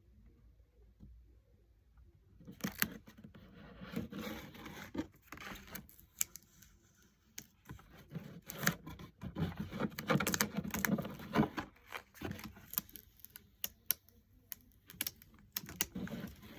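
A printed sticker being peeled from its backing and pressed and rubbed onto a paper certificate: rustling, scraping and tearing sounds with many sharp clicks, starting a couple of seconds in.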